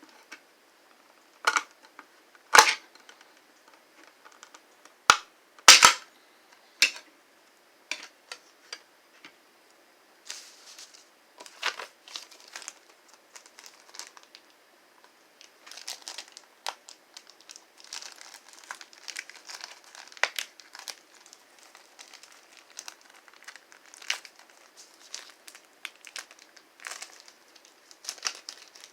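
Plastic wrapping crinkling and tearing as a small toy's pieces are unwrapped, with several sharp clicks in the first seven seconds.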